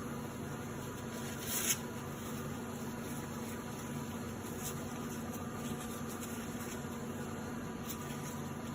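Steady mechanical hum of running lab equipment or ventilation, with a brief rustle about a second and a half in.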